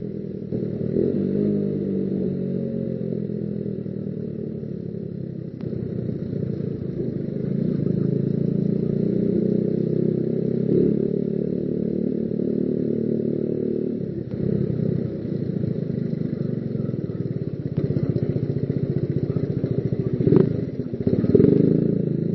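Motorcycle engine running under way, its pitch rising and falling with the throttle. Two sharp knocks come near the end.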